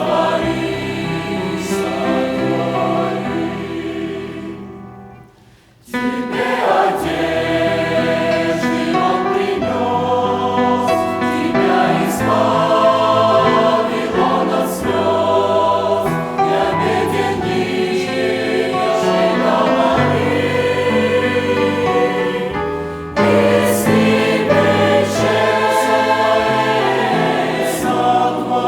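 A church choir sings a hymn in several voice parts. The singing fades into a short pause about five seconds in, then comes back at full strength, with another brief break between phrases near the end.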